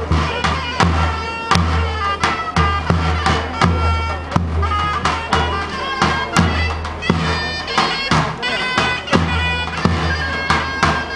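Greek folk dance music: a shrill reed wind instrument plays the tune over regular drum strokes with a heavy low beat.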